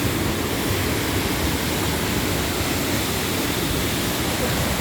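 Wahkeena Falls, a waterfall, rushing as a steady, even roar of falling water.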